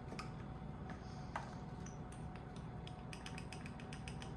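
Small plastic spice-jar cap being turned by hand, giving a quick run of small ratcheting clicks about three seconds in, after a couple of single light clicks.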